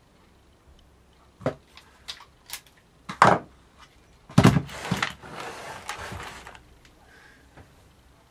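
Hand work on a solid-body electric guitar's strap button hardware: several sharp clicks and knocks, then a louder knock about four and a half seconds in followed by about two seconds of noisy handling.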